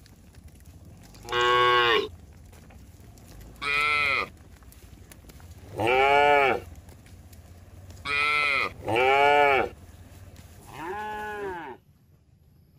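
Cattle mooing, six calls in a row, each rising then falling in pitch, with two coming close together about two-thirds of the way through. The low background noise drops away suddenly near the end.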